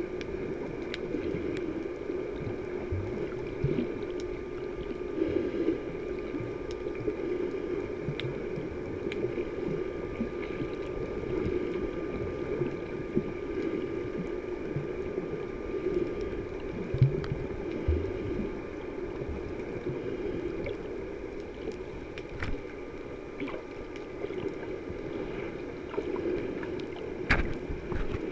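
Muffled underwater ambience picked up by a GoPro camera inside its waterproof housing: a steady dull rush with a faint constant tone above it, scattered light clicks and a few soft low thumps.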